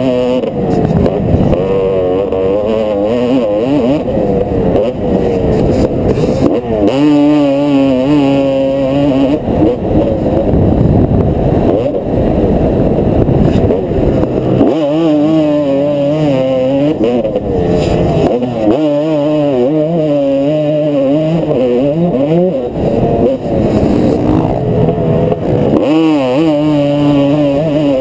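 Dirt bike engine heard from the rider's helmet camera, revving up and down hard as the bike is ridden around a motocross track, its pitch rising and falling again and again through the laps.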